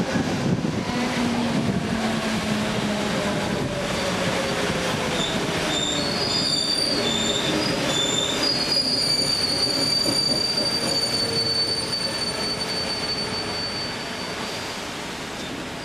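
Electric commuter train pulling into a station platform, its wheels running on the rails with a continuous rumble. From about five seconds in, high-pitched squeals from the wheels ring out for several seconds, and the noise eases near the end as the train slows.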